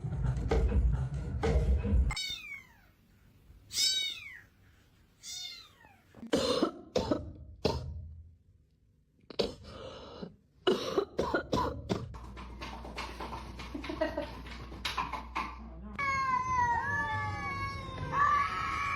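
Cat meowing several times in short, downward-sliding calls, with a run of knocks and clatter and more wavering cat calls near the end.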